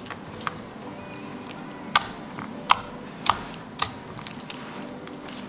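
Glossy pink slime being squeezed and stretched by hand, giving a handful of sharp, irregular clicks and pops.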